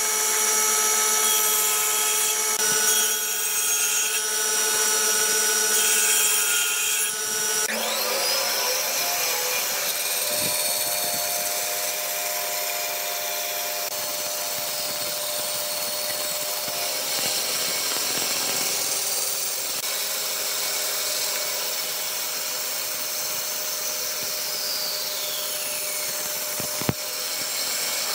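A power tool running continuously with a steady motor whine; the pitch of the whine changes abruptly about eight seconds in.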